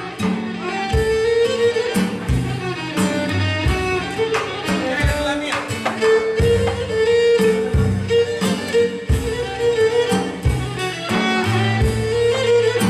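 Cretan lyra playing a dance melody in a live band, backed by low bass notes and a drum kit keeping a steady beat.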